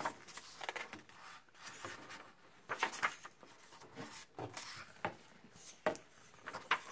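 Pages of a hardcover picture book being turned by hand: paper rustling and rubbing, with a few short, sharper rustles as the pages are handled.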